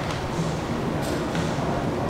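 Steady room noise of a large train-station hall, a low hum with a few faint taps.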